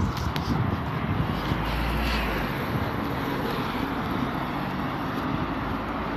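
Steady roar of passing motor traffic, with a deep rumble that swells about two seconds in.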